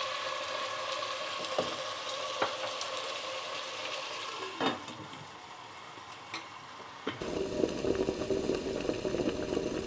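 Vegetables sizzling in oil in a stainless steel pot, stirred with a wooden spatula, with a few light knocks; about four and a half seconds in, the glass lid knocks onto the pot and the sizzle gets quieter. About seven seconds in, a sudden burst of electronic static with a hum from a video glitch-transition effect takes over.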